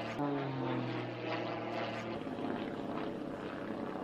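Single-engine aerobatic propeller plane's engine droning while the plane performs aerobatics, holding a steady pitch that shifts about halfway through.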